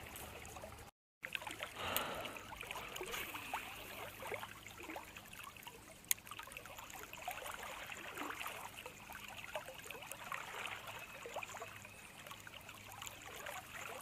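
River current running and trickling close by, with a short dropout to silence about a second in and a single sharp click about six seconds in.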